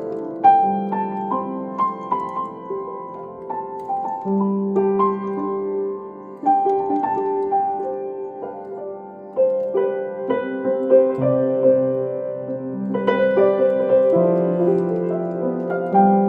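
An 1894 Kranich & Bach seven-foot grand piano being played: a slow, gentle melody over sustained bass notes, each note struck and left to ring.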